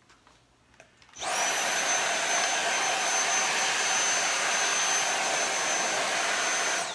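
A small high-speed electric fan motor switches on about a second in, whining up to speed with a steady high whine over a loud airy rush. It runs steadily for nearly six seconds, then is switched off near the end.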